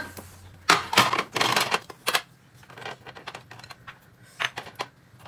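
A quick, irregular run of sharp knocks and clicks, dense for the first couple of seconds and then thinning to scattered taps.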